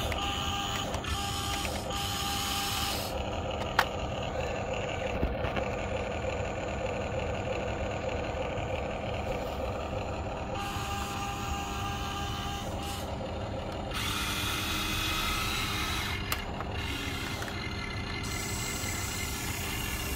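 Huina remote-control excavator's electric motors whining as its boom, arm and bucket move, the tone changing a few times as different motors start and stop, with one sharp click about four seconds in.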